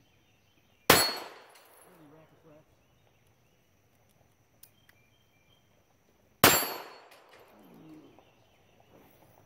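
Two pistol shots from a Unique .32 ACP (7.65 mm) semi-automatic pistol, about five and a half seconds apart, each a sharp crack that dies away over about a second.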